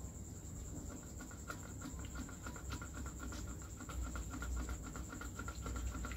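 Faint, rapid, even chirping of insects, several chirps a second, over a steady high-pitched whine.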